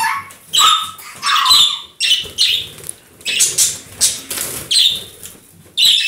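A parrot giving a series of loud, harsh squawks, roughly one or two a second.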